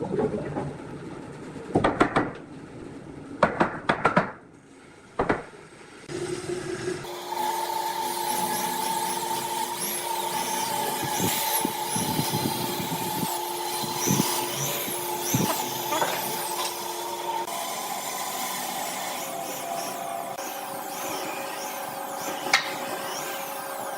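Several sharp knocks of workshop handwork, then a small motorised machine starts about seven seconds in and runs steadily with a constant hum and a high whine on top.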